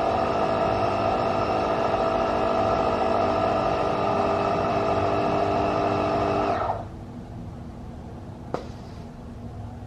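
A portable electric tyre-inflator air compressor runs with a steady mechanical drone while pumping up a car tyre, then cuts off abruptly about two-thirds of the way through. A single sharp click follows about a second and a half later.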